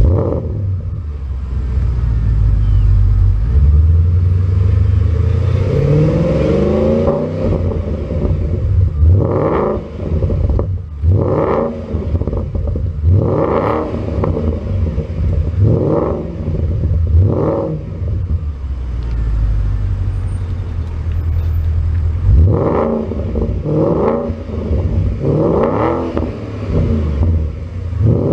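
Porsche Panamera S 4.8-litre V8 through a valveless Top Speed Pro1 cat-back exhaust, firing up and idling. It is then revved in a series of short throttle blips, with a stretch of steady idle between two groups.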